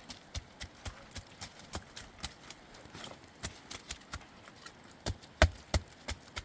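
A run of sharp knocks or taps, uneven, about three to four a second, with two louder thuds about five seconds in.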